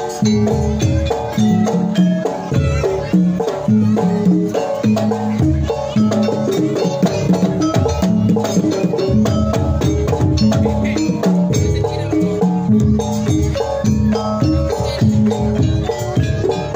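Live Javanese jaranan music: drums and gamelan-style metallophones playing a steady, repeating rhythm without a break.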